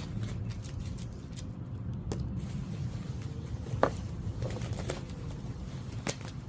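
Rustling and scattered light clicks of plastic fender-flare parts and packaging being handled, with a sharper knock about four seconds in, over a steady low rumble.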